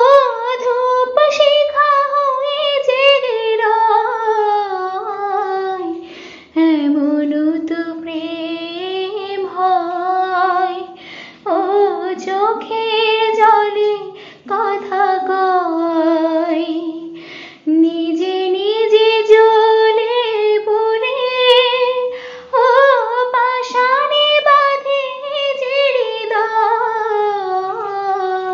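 A young woman singing a Bengali song solo and unaccompanied, in long sung phrases that slide between notes, with short pauses for breath between lines about every five seconds.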